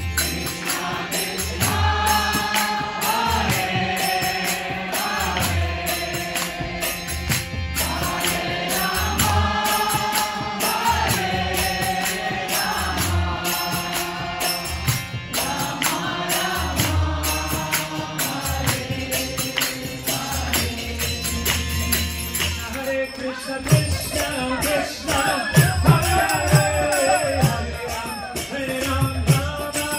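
Devotional kirtan: a man chanting a mantra over a harmonium, with other voices joining. About three quarters of the way through, the music turns livelier and busier, with sharp percussion strikes.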